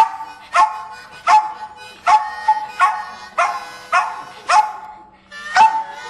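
Harmonica played in a rhythmic blues chug, sharp chords coming about every three-quarters of a second with a short break near the end, while a Jack Russell terrier howls along.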